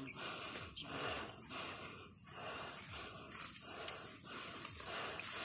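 Heavy breathing close to the microphone: a noisy hiss that swells and breaks off in quick, regular breaths, about one every 0.7 s, as of someone out of breath.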